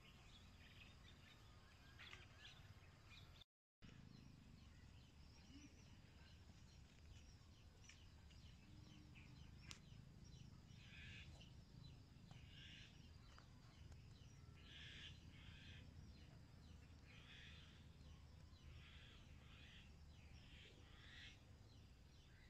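Faint outdoor ambience with a steady low rumble, and in the second half a series of short bird chirps, about one a second. The sound cuts out briefly a few seconds in.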